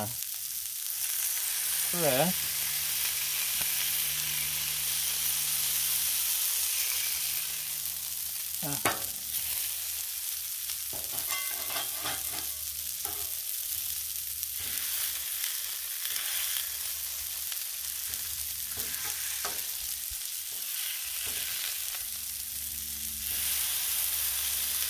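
Balls of ground beef mixed with breadcrumbs sizzling on a hot Blackstone flat-top griddle while a metal spatula presses them flat, with a few scrapes and knocks of the spatula on the steel.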